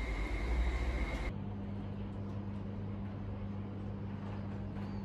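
Steady background noise: a low rumble with a faint steady high whine, cut off abruptly about a second in and replaced by a quieter steady low hum.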